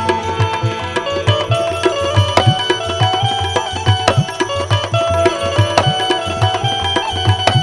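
Instrumental interlude of a Gujarati devotional bhajan (santvani): hand drums keep a steady, quick beat under long held melody notes, with sharp percussive clicks on top.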